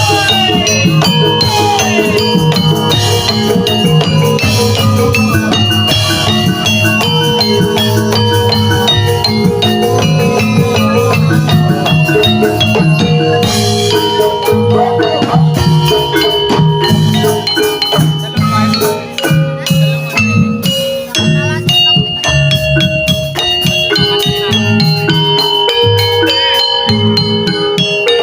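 Javanese gamelan-style music for a jaranan dance: ringing metallophone notes over a steady drum beat.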